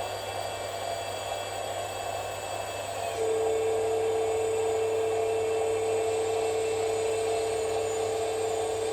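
Small electric motor of a radio-controlled model running with a steady whine. A louder, steady high whine cuts in about three seconds in and holds.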